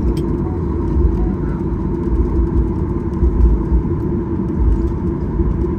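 Airliner cabin noise while taxiing after landing: a steady drone with a fixed tone, over a low rumble that rises and falls.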